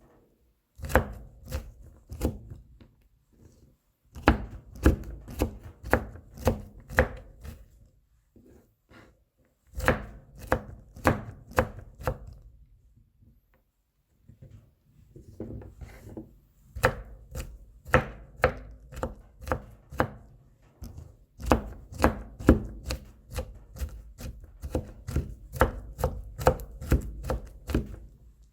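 Kitchen knife mincing garlic cloves on a cutting board: runs of quick chopping strikes, several a second, broken by short pauses.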